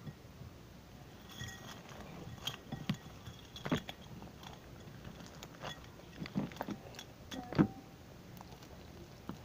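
Scattered light clicks and soft knocks from hands handling small objects, about seven at irregular intervals, the loudest near the end.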